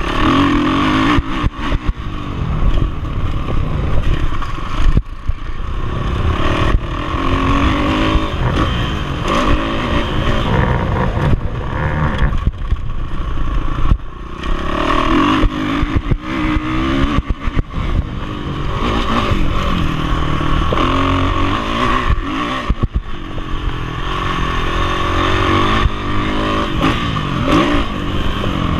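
Motocross bike engine revving hard and falling off again and again as the rider accelerates, shifts and backs off through the corners of a dirt track. Heavy wind buffeting and clatter from the bike's bouncing over the bumps go with it on the handlebar-mounted camera's microphone.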